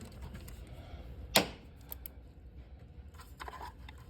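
Light clicks and clacks of engine-bay parts and tools being handled, with one sharp click about a second and a half in and a few fainter ticks later.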